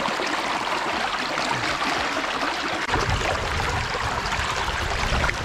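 Shallow stream water running and sloshing, an even rushing noise, with a low rumble coming in about three seconds in.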